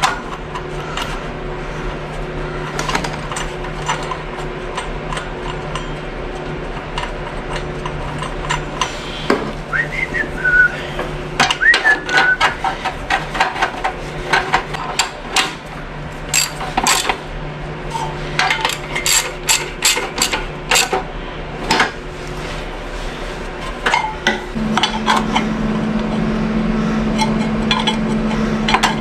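Hand tools working on metal: scattered clinks, taps and sharp knocks, thickest in the middle, over a steady low hum that shifts to a higher, louder hum near the end.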